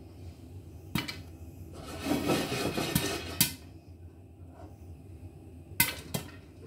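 Popcorn popping in a frying pan under a glass lid: about five sharp pops, spread out, with a noisy stretch of a second and a half or so in the first half. The pops are spaced far apart, typical of popping that is only getting going or tailing off.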